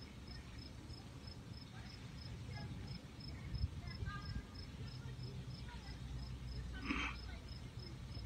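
A cricket chirping steadily in short, evenly spaced high pips, roughly two to three a second, over a low outdoor rumble. A brief louder sound cuts in about seven seconds in.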